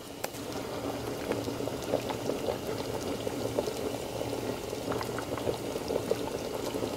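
Pot of thick Jamaican chicken soup boiling on the stove: a steady run of small bubbling pops and plops.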